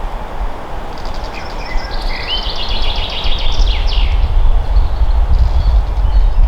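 Songbird singing in a forest: one rapid, trilling phrase about a second in, lasting some three seconds. Underneath runs a strong, steady low rumble that grows louder in the second half.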